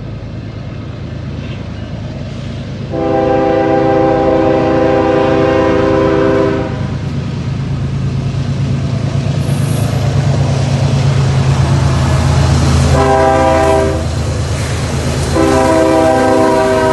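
Union Pacific diesel locomotives running as the train passes, with the air horn sounding a long blast about three seconds in, a short blast near the thirteen-second mark, and another long blast starting near the end.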